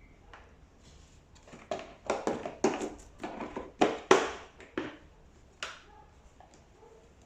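Knocks and clatter of tumble dryer parts being handled and fitted: about a dozen sharp knocks come in a quick run from about two to five seconds in, and one more follows near six seconds.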